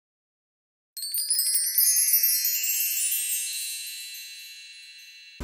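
A wind-chime-like sparkle sound effect: after a second of silence, a cascade of high tinkling tones, some rising in pitch, rings out and slowly fades.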